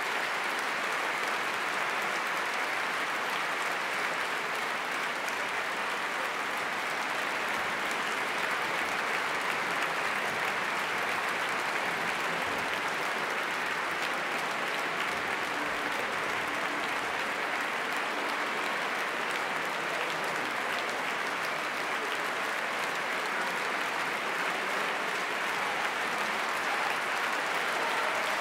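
Large concert audience applauding, a dense, steady clapping from a full hall that holds level throughout.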